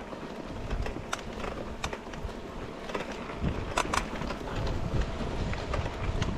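Mountain bike rolling over a rough grassy trail, heard from a handlebar-mounted camera: a steady low rumble with scattered clicks and rattles as the bike jolts over bumps, a sharp pair of knocks near the middle.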